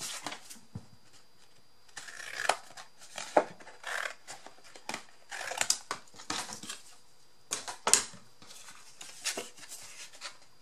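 Scissors snipping and cereal-box cardboard rustling as it is cut and handled, in irregular strokes with a few sharp clicks.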